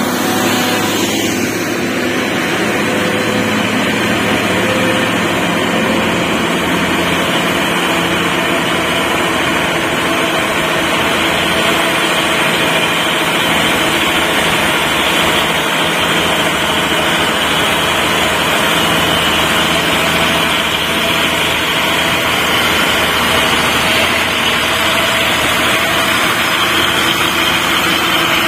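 Diesel engine of a loaded Mitsubishi cargo truck running with a steady drone as the truck climbs slowly up a steep grade.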